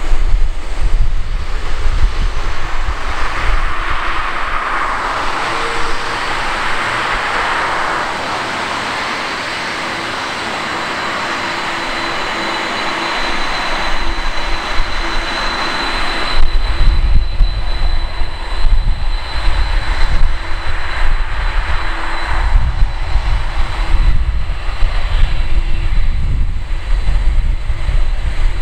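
Boeing 747-400's four Rolls-Royce RB211 turbofans running at taxi power: a steady jet whine with a thin high whistle through the middle. Gusty wind rumbles on the microphone in the first seconds and again through the second half.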